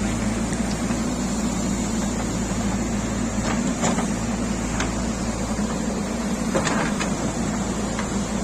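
JCB 3DX backhoe loader's diesel engine running steadily, with a few short metallic clanks in the second half.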